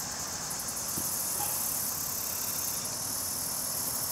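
Steady, high-pitched chorus of insects chirring with a fast pulsing texture.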